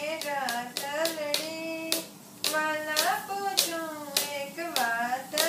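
A young boy singing a Gujarati Swaminarayan devotional kirtan in long held notes, keeping time with sharp hand beats about twice a second.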